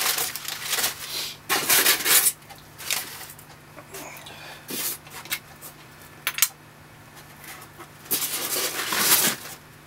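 Packaging rustling and items knocking as the contents are lifted out of a box, in a string of irregular noisy bursts with a sharp click about six and a half seconds in.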